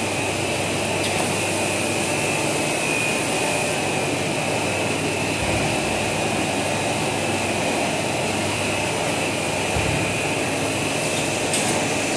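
XHD 1500 mm cast stretch film machine running at production speed: a steady machine whir and hiss with a constant high whine.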